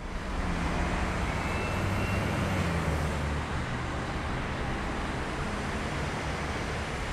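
Steady road traffic: motor vehicles running past, with a low engine hum that is strongest in the first few seconds and then eases into a steady wash of traffic noise.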